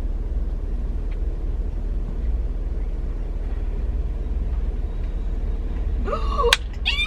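Car's low, steady running rumble heard from inside the cabin. About six seconds in, a brief high, wavering sound and a sharp click.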